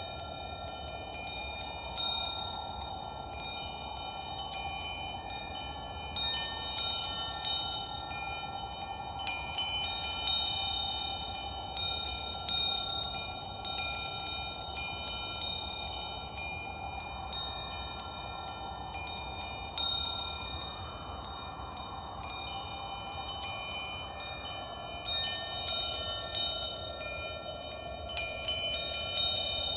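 Wind chimes ringing in irregular clusters of strikes every second or two, with bright high tones that ring on, loudest about a third of the way in and near the end. Under them runs a steady, slowly swelling whoosh.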